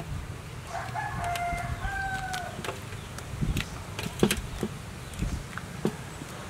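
A rooster crows once, a single drawn-out call of about two seconds starting about a second in. A few light clicks and knocks follow.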